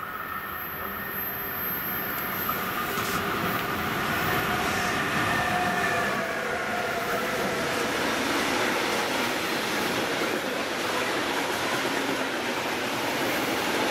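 Freight train hauled by two electric locomotives passing through a station, followed by a long string of covered hopper wagons. The sound grows louder over the first few seconds as the locomotives come by, with a few faint tones that drop slightly in pitch, then settles into the steady wheel-on-rail noise of the passing wagons.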